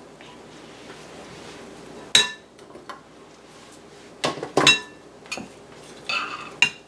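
Metal spoon clinking against a glass mixing bowl: about five separate sharp, ringing clinks, the loudest a little past halfway.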